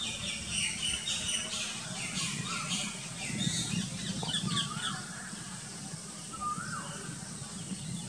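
Birds chirping and calling in quick high notes, busiest in the first half, with a short rising-and-falling whistle repeated a few times, over a steady low hum.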